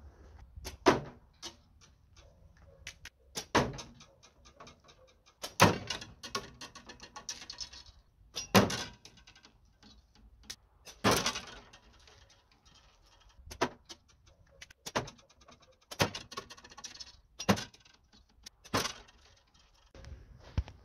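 Arrows shot from a spring-steel bow striking a wooden shed wall and a plastic jug target: about ten sharp thuds, one every one to three seconds, each with a brief rattle.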